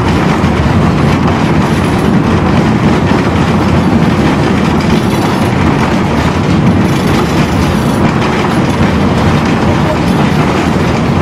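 Tram in motion, heard from inside the passenger car: a loud, steady rumble of steel wheels running on the rails.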